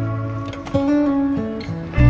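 Background music: plucked acoustic guitar notes.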